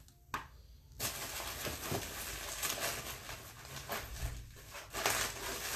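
Close rustling and scraping handling noise right against the microphone, starting about a second in, with scattered light clicks.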